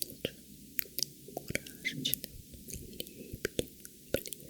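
Close-up whispering with many sticky, wet mouth clicks and smacks, a quick irregular scatter of clicks.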